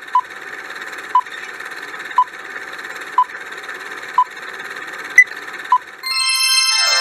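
Quiz countdown timer sound effect: a steady hiss with a short beep once a second, the second-to-last beep higher and louder, then a bright chime with a falling sweep about six seconds in as time runs out.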